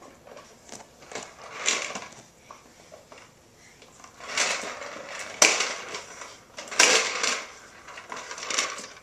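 A plastic push-along popper toy, its small balls clattering and popping inside the clear dome in repeated bursts with sharp knocks as the handle is swung and shaken.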